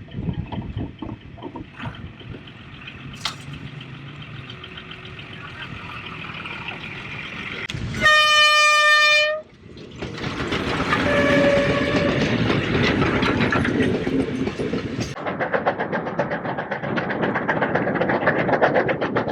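QJ class 2-10-2 steam locomotive approaching, its noise growing louder. About eight seconds in comes one loud steam whistle blast of about a second and a half, followed by heavy running noise and a shorter whistle. From about fifteen seconds in there is a fast, rhythmic clatter of the passing train.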